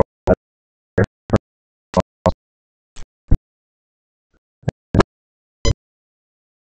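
A series of short sharp clicks, several in pairs about a third of a second apart, with dead silence between them and a pause of about a second in the middle.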